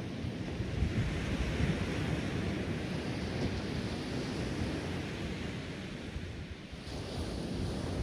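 Small ocean waves breaking and washing up a sandy beach, with wind buffeting the microphone as a low rumble. The surf swells and eases, dips around six seconds in, and rises again with a fresh wash about seven seconds in.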